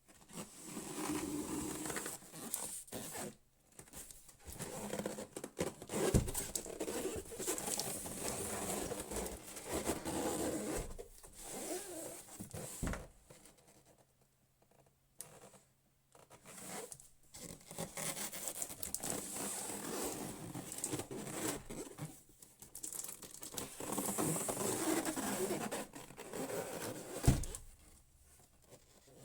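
Packaging being torn open and handled: bursts of tearing, scraping and rustling with short pauses, and a few dull thumps, the loudest near the end.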